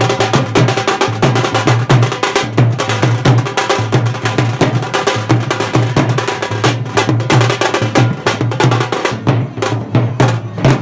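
A live drum band of large stick-beaten bass drums and smaller drums playing a fast, dense, driving rhythm, which stops abruptly at the end.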